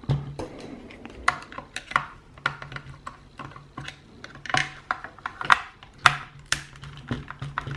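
Irregular small clicks, taps and clatter of a screwdriver and small plastic and metal parts being handled as a speaker housing is unscrewed and taken apart.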